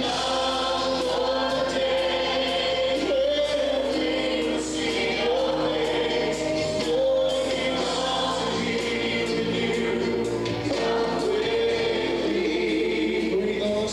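A church congregation singing a worship song together, many voices holding long notes.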